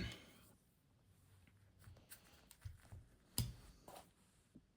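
Faint handling noise: a few light clicks and knocks, with one sharper click about three and a half seconds in.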